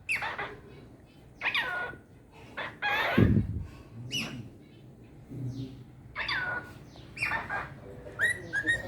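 Cockatiel calling: a string of short chirps that slide down in pitch, about one a second, with a louder call about three seconds in and a few steadier whistled notes near the end.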